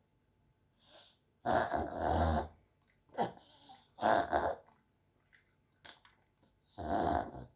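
Pug sneezing several times in short, noisy bursts, the loudest about a second and a half, four and seven seconds in, with fainter ones between.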